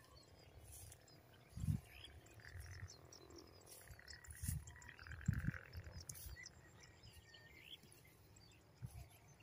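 Faint outdoor field ambience with scattered short chirps and calls of small animals. A few soft low thumps, the loudest near the middle.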